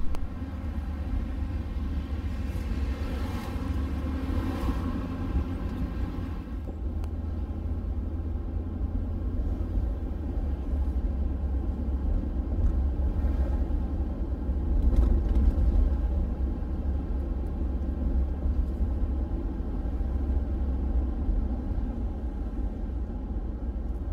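Steady low rumble of engine and tyres heard from inside a pickup truck's cabin while driving along a street.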